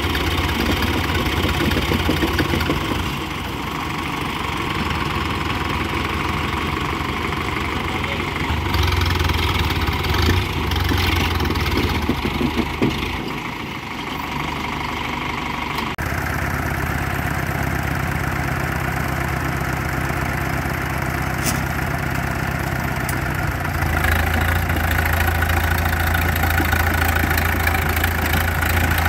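Tractor diesel engines running under load as a Sonalika 60 and another tractor pull against each other back-to-back. The engine sound is steady, grows louder about a third of the way in, changes abruptly about halfway, and grows louder again near the end.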